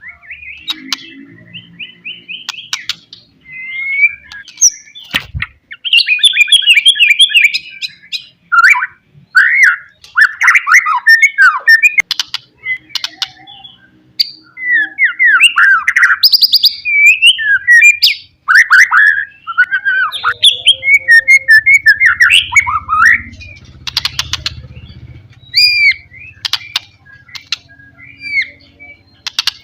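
White-rumped shama (murai batu) singing a loud, varied song of quick whistled phrases, rising and falling notes and sharp clicks, broken by short pauses.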